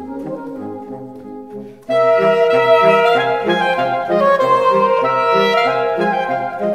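Instrumental background music led by horns. The first couple of seconds are quieter, over a regular bass line; about two seconds in the full horn section comes in loudly with held chords.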